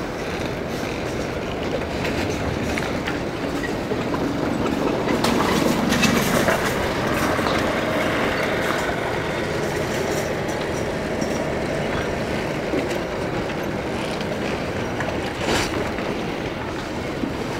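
Steady outdoor background noise: a continuous rumble and hiss that swells about five seconds in, with scattered light clicks.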